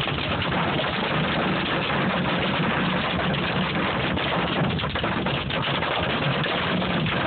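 Hail and rain pelting a car's roof and windshield, heard from inside the cabin: a loud, steady, dense drumming made of countless small hits.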